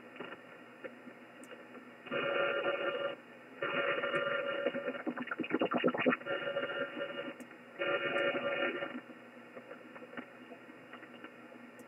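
Interference heard through an HF receiver in upper sideband on the 15-meter band: a buzz of many steady overtones that switches on and off in bursts of about a second, with a fast rattling pulse in the middle, over band hiss between bursts. The operator wonders whether it is electrical noise.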